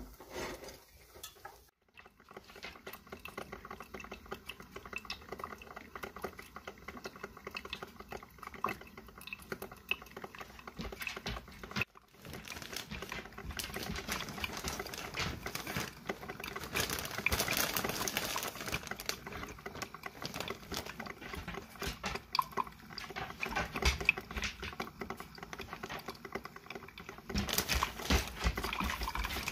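A collie moving about on a bare plywood subfloor, its claws pattering and clicking.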